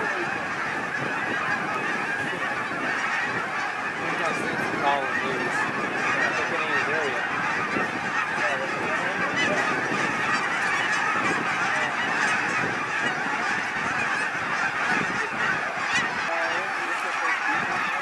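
A huge flock of snow geese calling in flight: a dense, unbroken din of many overlapping goose calls.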